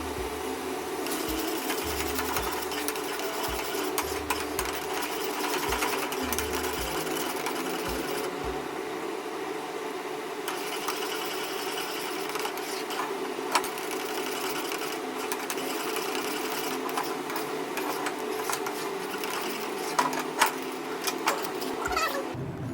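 Steady machine-like whirring with a fast, even rhythm. A few clicks come near the end, and the whirring cuts off suddenly.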